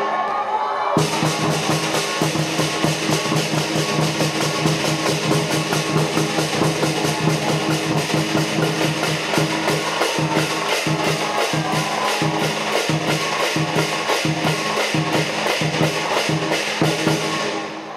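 Lion dance percussion band playing a fast, driving beat on the big lion drum, with clashing cymbals and gong. It drops out briefly about a second in and fades near the end.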